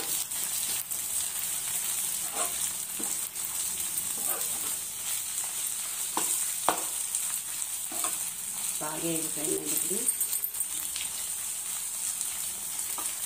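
Gongura and spinach leaves frying with garlic and dried red chillies in a non-stick wok: a steady sizzle, with short scrapes of the spatula as it stirs.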